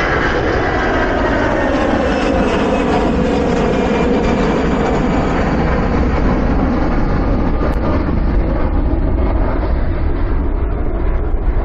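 Jet airliner taking off: a loud, steady roar of its jet engines, with tones that slowly fall in pitch and a high end that fades towards the end as the plane moves away.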